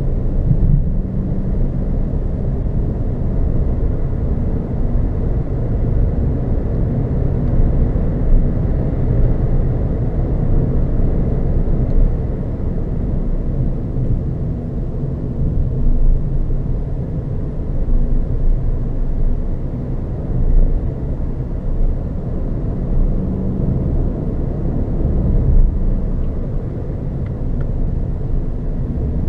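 Renault Zoe electric car driving along a road: a steady, low rumble of tyre, road and wind noise with small swells, and no engine sound.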